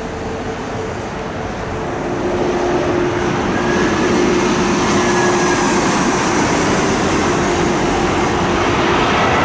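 Jet airliner coming in to land, its engine noise rushing and swelling louder from about two seconds in, with thin whining engine tones over the roar.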